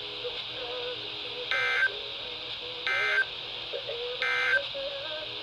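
Emergency Alert System end-of-message signal: three short, identical bursts of warbling digital data tones, about a second and a half apart, marking the close of the broadcast weather warning.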